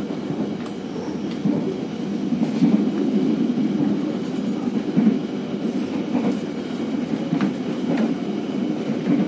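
Ride noise inside an economy-class passenger coach of a moving train: a steady rumble of wheels on rails, with a few scattered clicks and knocks.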